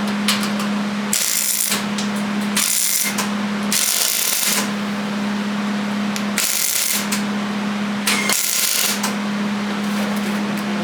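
Five short bursts of MIG welder crackle, each about half a second long, as tack welds go onto the sheet-metal windshield patch panel, over a steady low hum.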